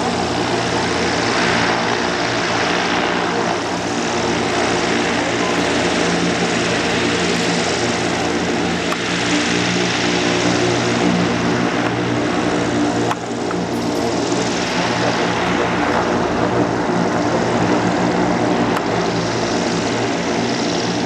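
Zeppelin NT airship's propeller-driven piston engines running steadily close by: a droning hum under a rushing hiss that swells and fades every few seconds.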